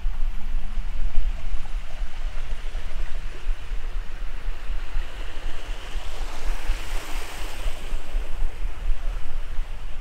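Wind buffeting the microphone: a fluttering low rumble under a rushing hiss that swells about seven seconds in.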